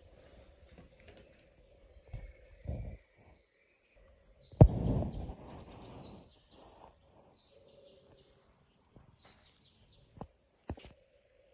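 Scattered knocks and thumps, with one sharp loud knock about four and a half seconds in that rings on for a second or so, and two short clicks near the end.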